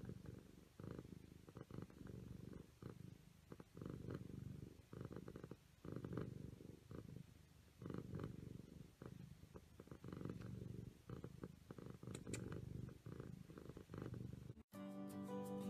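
Siamese cat purring while asleep, a low, faint purr that swells and fades every second or so. Near the end it cuts off suddenly and music starts.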